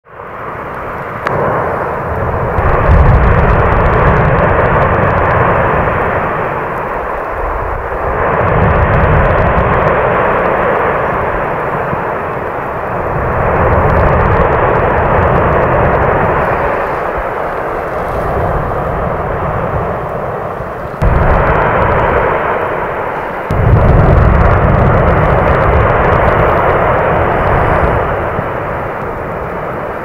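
Erupting vent of the 2021 Cumbre Vieja volcano on La Palma, with a deep rumble and rushing noise that swell and fade in surges a few seconds long as lava is thrown out in pulses and breaks up into pyroclasts. The sound fades in over the first second.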